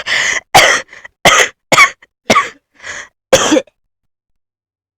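A person coughing violently, about seven harsh coughs in quick succession, stopping suddenly a little over halfway through.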